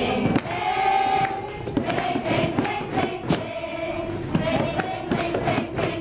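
A group of voices singing a Thai anti-drug song together, with music behind and long held notes.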